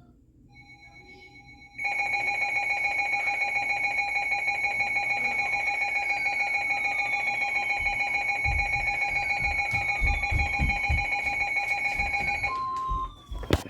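Emergency Alert System attention tone from a radio receiver: one loud steady alarm tone lasting about ten seconds, then cutting off, with a brief higher beep just after. A few low thumps sound underneath near the end.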